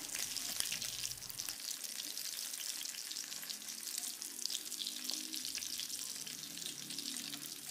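Marinated chicken pieces deep-frying in hot coconut oil in a kadai: a steady sizzle with fine, continuous crackling.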